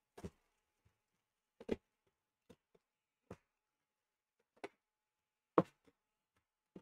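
Light taps and clicks, spaced about a second apart, from trading cards being handled and set down on a metal card tin; the loudest tap comes near the end.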